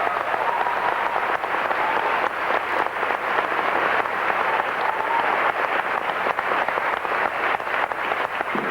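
Theatre audience applauding, a dense patter of clapping with a few cheers mixed in.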